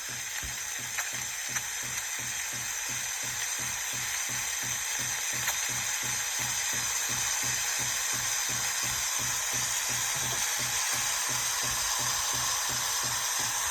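Philips automatic espresso machine frothing milk through its LatteGo milk system: a steady steam hiss and sputter over the pump's even pulsing, about four beats a second.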